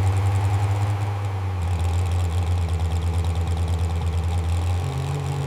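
A car engine idling steadily, its low note shifting slightly near the end.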